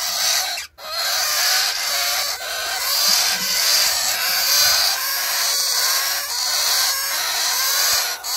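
A brood of young rosellas in a wooden nest box calling all at once: a loud, raspy, unbroken chatter of nestling begging calls, breaking off for a moment just under a second in.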